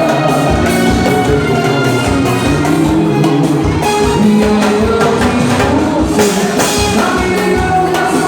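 Upbeat dance music with a singer over a steady drum beat.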